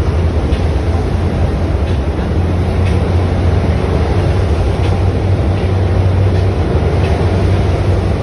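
Train running on rails: a steady low rumble with faint clicks about once a second.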